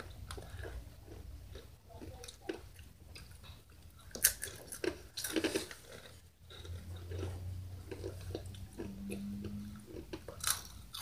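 Spicy chips being crunched and chewed with mouths open, in irregular crisp crunches, a few louder ones about four and five seconds in and near the end.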